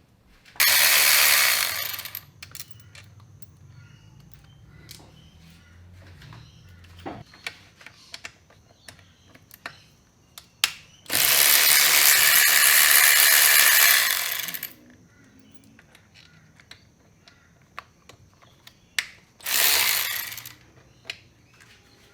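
A power ratchet runs in three bursts: about a second and a half, then about three and a half seconds, then about a second and a half. It is undoing the transmission oil pan bolts. Light metallic clicks and clinks of tools and bolts come between the bursts.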